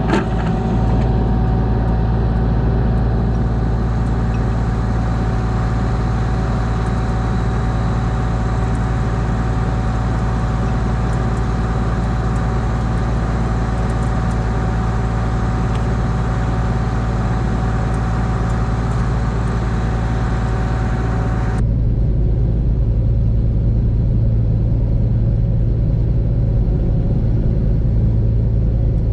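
Large farm machine's engine running steadily with a low hum. About three-quarters of the way through the sound changes abruptly: a steady higher whine and the upper hiss drop out and the low hum gets a little louder.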